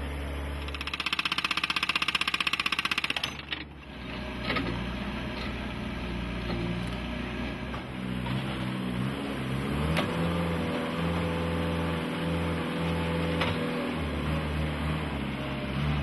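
A JCB 1CX compact backhoe loader's engine running and revving as the machine works, its pitch shifting as the load changes. A loud, fast rattling clatter lasts about the first three seconds, and a steady higher whine joins the engine about ten seconds in.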